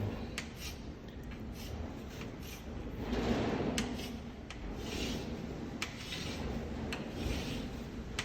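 A writing tool scratching out a sketch in a series of strokes, with a few sharp taps between them.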